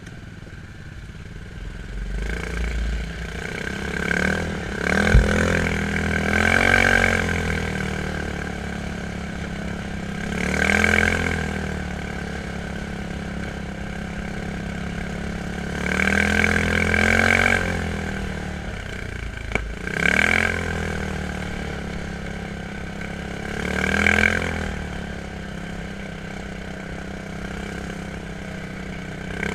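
Quad bike engine running under riding load, revving up and back down in surges every few seconds between steadier stretches, with a sharp knock about five seconds in.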